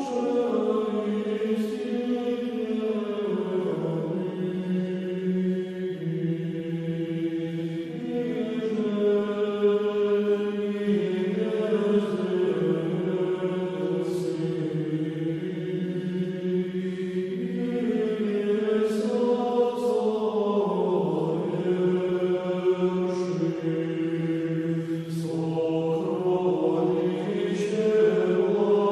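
Male choir chanting in slow, held notes over a low sustained drone: Orthodox liturgical chant.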